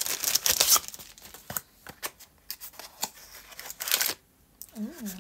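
Plastic packaging crinkling and rustling in irregular bursts as a package is torn open by hand, loudest in the first second and again about four seconds in. A short hummed voice sound comes near the end.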